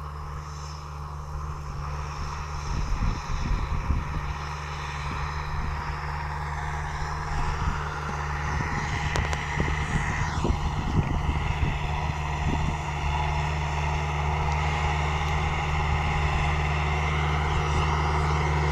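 Case tractor's diesel engine running steadily while working the field, a low drone that grows louder as the tractor approaches.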